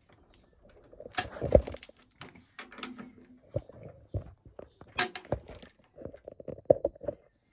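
Socket wrench on a 10mm socket turning out the front brake caliper bolts of a Harley-Davidson Road King, then the caliper coming off the fork. The sound is a run of irregular metallic clicks and knocks, with a cluster of quick clicks near the end.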